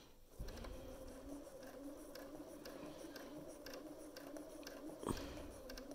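Bernina 570 sewing machine running slowly during free-motion stitching with the feed dogs down: a quiet, steady motor hum with light ticking, starting about half a second in. A soft knock just after five seconds.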